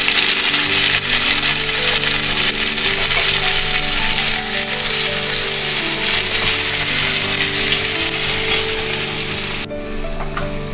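Onion and freshly added tomato sizzling in hot mustard oil in an aluminium kadai, a loud, steady frying hiss. Background music of held notes plays underneath. The sizzle drops off abruptly near the end.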